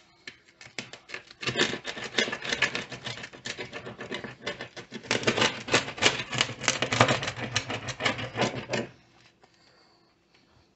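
Knife sawing back and forth through a crisp-baked pizza crust, a rapid scratchy crunching that starts about a second in and stops near the end.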